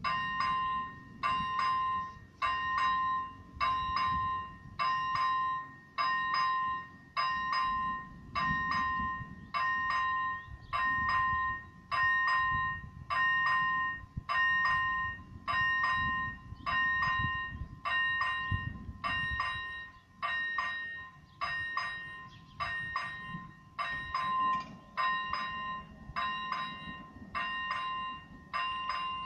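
Electronic warning bell of an AŽD 97 automatic level-crossing signal, striking a ringing tone about once a second while the crossing closes for an approaching train.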